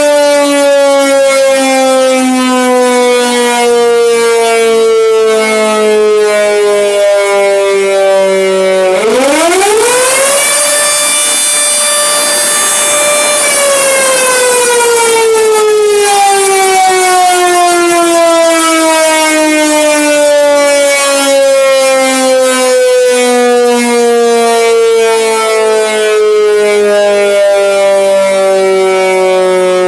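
Air raid siren being tested, sounding a wail: its pitch winds down slowly, climbs quickly about nine seconds in, holds for about three seconds, then winds down slowly again.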